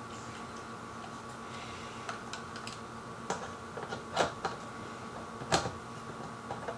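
Scattered clicks and knocks of a camera being handled and fitted onto the back of a telescope, the sharpest about four and five and a half seconds in, over a steady hum.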